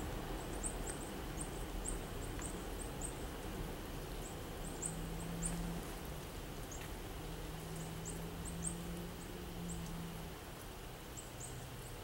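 Small birds giving high, thin chirps, short notes in loose series, over a steady background hiss and a faint low hum that comes and goes.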